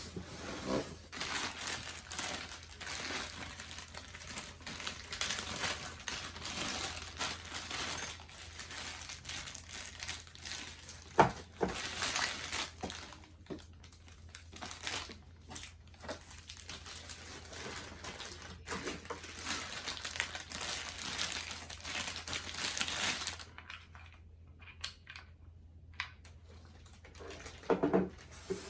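Packaging being handled during a monitor unboxing: irregular crinkling and rustling, with a sharp knock about 11 seconds in and a few dull knocks near the end.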